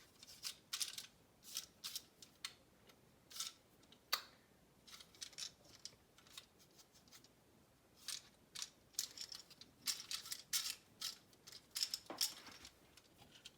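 Plastic and paper packaging crinkling and rustling in irregular short crackles as a new GFCI outlet is worked out of its package.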